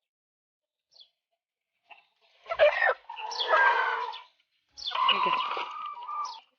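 A chicken squawking twice: the first call comes about two and a half seconds in and the second about five seconds in, each lasting over a second.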